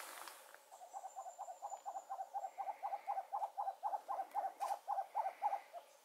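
Small owl giving a steady series of about twenty short hoots, roughly four a second, growing a little louder and stopping shortly before the end.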